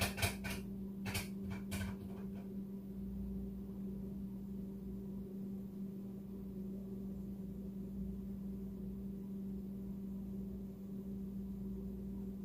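Steady low electrical hum from a running appliance or motor, with a few light taps in the first two seconds.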